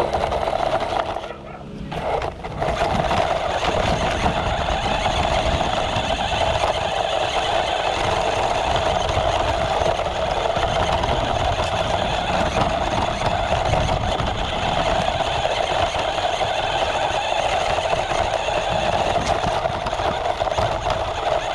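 Small electric motor of a 1:16 SUNTEX S727 RC monster truck whining steadily as it drives, with the tyres and chassis rattling over gravel, heard from a camera mounted on the truck. The sound drops briefly about a second and a half in, then runs on steadily.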